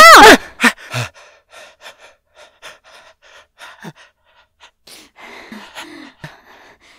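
A loud, wavering cry breaks off in the first half-second. It is followed by a run of short, shaky gasping breaths, two or three a second, the frightened breathing of someone held at knifepoint.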